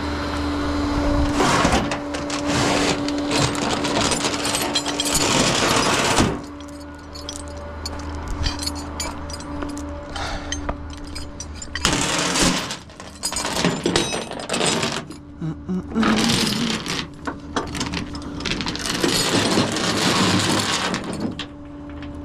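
Tie-down chains being handled and tightened on a tow truck, giving heavy rattling and clanking in several long bursts over a steady hum.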